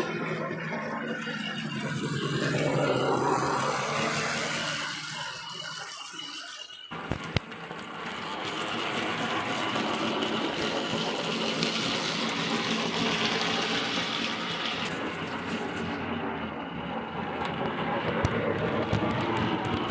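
Background music for the first several seconds, then, after a sudden click, a Hornby OO-gauge model steam locomotive running along its track with a steady mechanical rattle.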